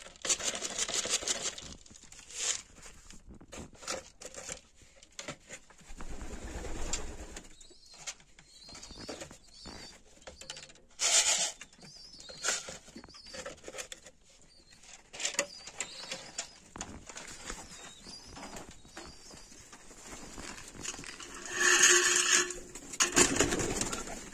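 Pigeons cooing in the loft, with scattered clicks and knocks throughout and a louder stretch of sound a little before the end.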